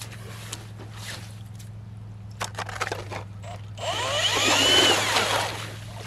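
Cordless drill driving an ice auger, biting into the lake ice for about a second and a half starting about four seconds in, with grinding ice chips and a motor whine that rises and falls in pitch under load. A few light knocks come just before.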